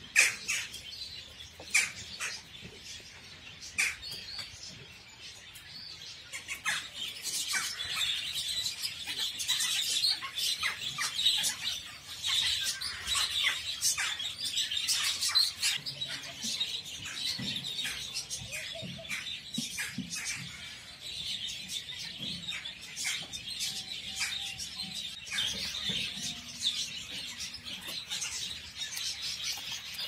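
Many small birds chirping and twittering, a dense, continuous chorus of short high calls.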